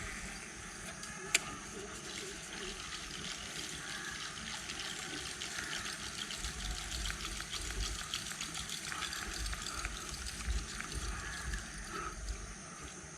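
Stream water trickling, a steady fine splashing, with a single sharp click about a second and a half in.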